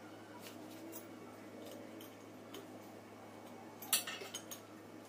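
Small metal parts and tools being handled and clinking, with one sharper metal clank about four seconds in followed by a few lighter taps.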